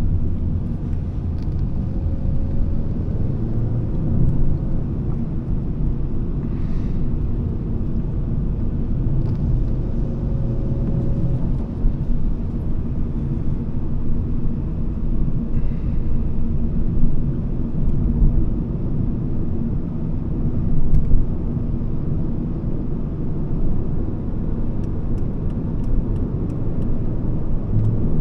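Driving noise inside the cabin of a Volvo S40 II 2.4i: a steady low rumble of road and tyre noise with the 2.4-litre five-cylinder petrol engine running underneath. A faint engine note rises briefly twice.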